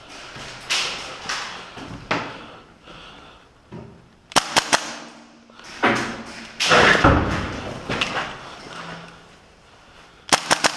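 Airsoft gun fired in two quick bursts of three or four sharp shots, the first a little over four seconds in and the second near the end. Between them come footsteps and a loud scraping thud.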